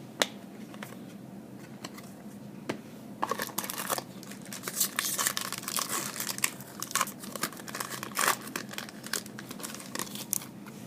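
Foil trading-card pack wrapper crinkling and being torn open, in a run of crackles from about three seconds in to near the end, after a single sharp tap just after the start.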